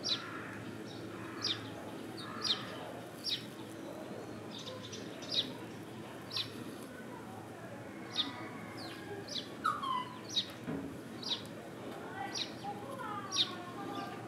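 A small bird chirping repeatedly: short, sharp, high calls that drop in pitch, coming irregularly about once a second over a steady background hum.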